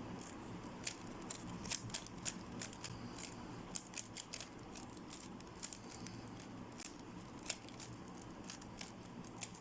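3x3 speed cube being scrambled by hand: quick, irregular plastic clicks and clacks of the layers turning.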